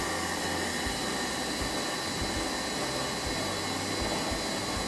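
White commercial planetary stand mixer running steadily, an even, continuous machine whir.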